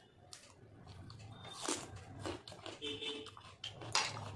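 Close-up hand-eating sounds: fingers squishing rice mixed with egg curry, with wet chewing and lip smacks. The loudest wet smack comes near the end, as a handful goes into the mouth.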